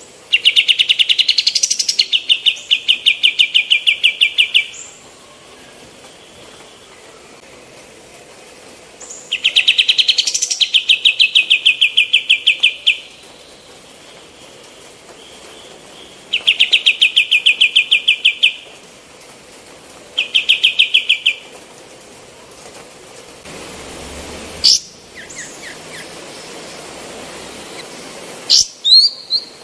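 Female kapas tembak singing as a song-tutor recording: loud, rapid trills, about four phrases of one to four seconds each with short pauses between, then a few short sharp notes near the end.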